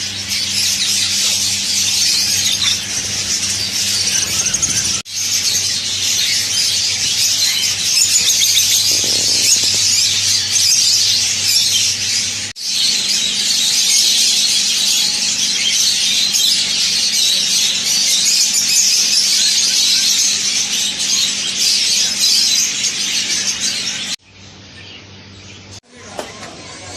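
Many small caged birds chattering and squeaking all at once in a dense, shrill, continuous din, which drops to a quieter level about 24 seconds in.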